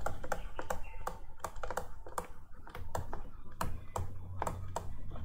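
Stylus tapping and clicking on a writing tablet as words are handwritten: an irregular run of sharp clicks, several a second.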